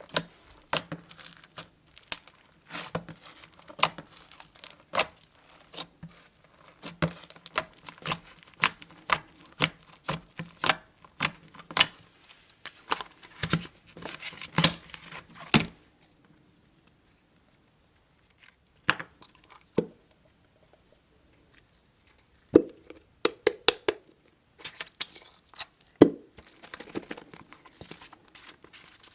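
Glue-and-borax slime being kneaded and pulled by hand, with sharp sticky clicks and pops about two a second. They stop about 16 seconds in, and after a quieter stretch a few squishes and pops come back near the end.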